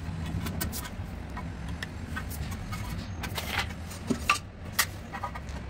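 Steady low background hum, with a handful of short sharp clicks and taps in the second half as tools and the granite strip are handled on the stone floor.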